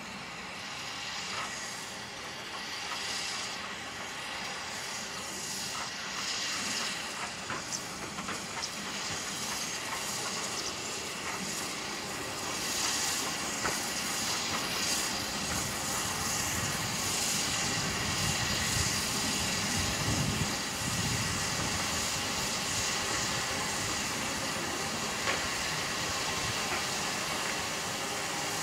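LMS Fowler 3F 0-6-0T steam tank locomotive running light at low speed, hissing steam. It grows louder as it draws close and passes alongside, with a low rumble about twenty seconds in as it goes by.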